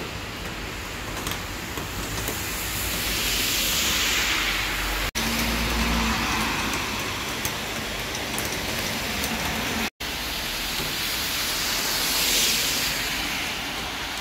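Rain falling and cars passing on a wet road, their tyres hissing on the wet asphalt; two passes swell up, about four seconds in and again near the end.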